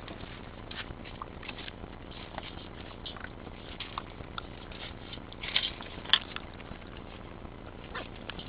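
Pit bull puppies eating dry kibble from a metal bowl: irregular crunching and small clicks, with a louder clatter about six seconds in.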